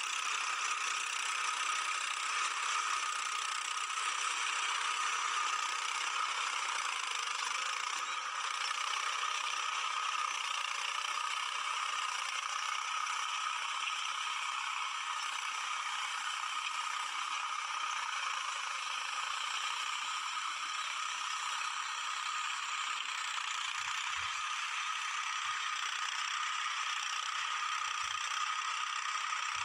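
Mahindra 275 DI tractor's three-cylinder diesel engine running steadily under load as it pulls a cultivator, with rattling from the tractor and implement. It sounds thin, with no bass.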